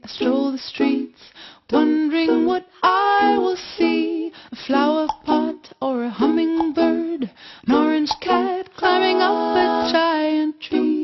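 Music: a bright ukulele song with a singing voice.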